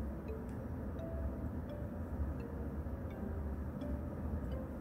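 Quiet room tone: a steady low rumble with faint scattered ticks and a few soft, brief tones.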